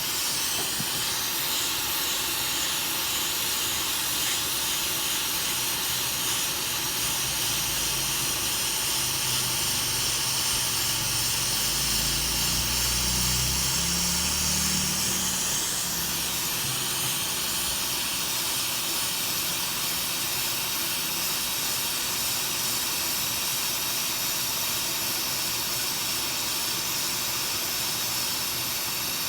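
Steady hiss of blowing air, as from a hot-air rework gun or blower, with a low rumble in the middle.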